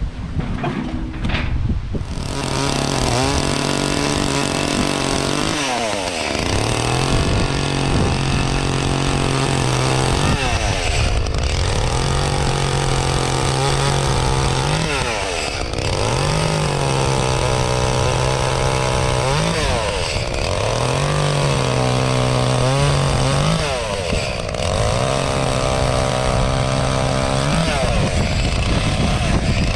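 Echo CS-352 two-stroke chainsaw running at high revs. Every four seconds or so its pitch sags and then climbs back.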